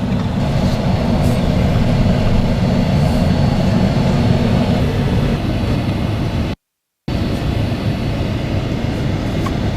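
Steady low road and engine rumble inside a moving car's cabin, cutting out briefly a little past halfway.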